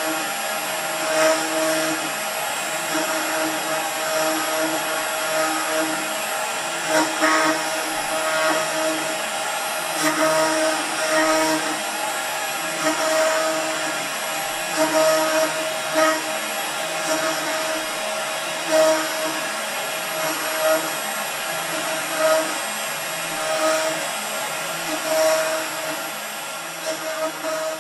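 CNC router spindle running steadily as a chamfer bit engraves characters into wood, with the Z axis repeatedly lifting and plunging. A humming motor tone switches on and off every second or two as the axes move, with brief louder peaks as the bit bites.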